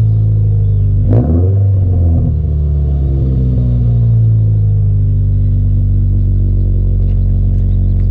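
A 2022 Subaru BRZ's 2.4-litre flat-four exhaling through a Remark double-wall axleback exhaust, idling with a deep, steady note. About a second in it gives one quick rev blip and drops straight back to idle.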